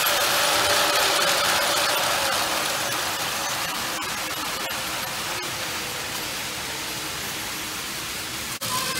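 Battery-powered Plarail toy Shinkansen Kagayaki running on plastic track: a steady whirring of its small motor and rattle of wheels and joints, loud as it passes close and slowly fading as it runs away. A brief dropout near the end.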